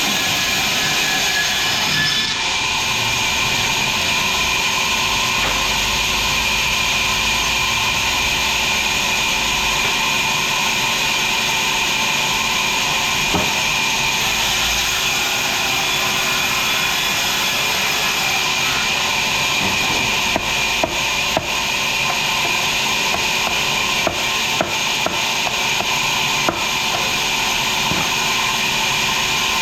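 Sawmill saw running steadily through a log, a dense hissing machine noise. A scatter of sharp knocks comes about two-thirds of the way in.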